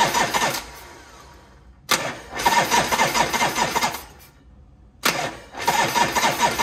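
Harley-Davidson Shovelhead V-twin being turned over by its electric starter in repeated bursts, each with a rapid, even pulse. One burst ends just after the start, another runs from about two to four seconds in, and a third begins about five seconds in. The engine cranks without firing because the fuel is off, and the rebuilt starter solenoid now engages the starter reliably.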